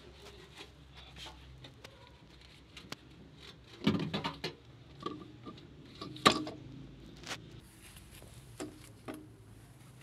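Knocks, clunks and rattles of a washing machine's drive motor being worked loose and pulled out of the machine's base by hand. A cluster of knocks comes about four seconds in, and the loudest single knock a little after six seconds.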